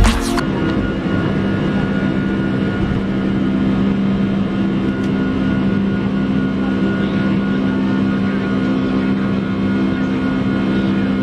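Passenger-aircraft engines heard from inside the cabin during takeoff and climb: a steady, loud drone with a low hum and a fainter high tone.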